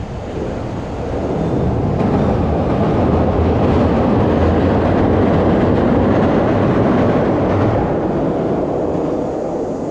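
Train passing close by: a loud rumble that builds about a second in, holds, and fades near the end.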